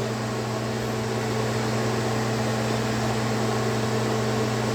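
Steady machine hum with a few held low tones over a faint even hiss, unchanging throughout: the running drone of an indoor motor or fan.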